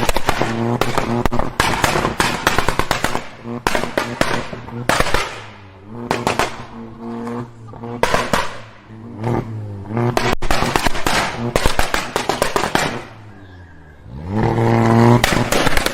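Mk6 VW Golf exhaust revved repeatedly, the engine note climbing and falling several times, with rapid pops and crackles on each lift-off. Near the end it drops to a quieter idle, then revs up again.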